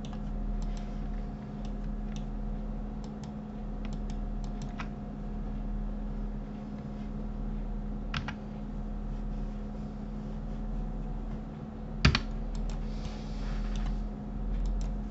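Scattered clicks of a computer keyboard and mouse, with one louder click about twelve seconds in, over a steady low electrical hum.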